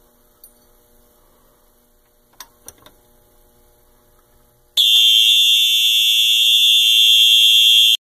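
A couple of faint clicks, then about five seconds in a Simplex 4001 fire alarm system, tripped through a wired-in elevator call button, sounds a loud, steady, high-pitched continuous tone.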